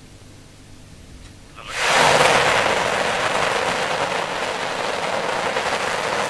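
Soyuz-2.1a rocket engines igniting at launch: a sudden loud rushing noise starts about two seconds in, peaks just after, then runs on steadily.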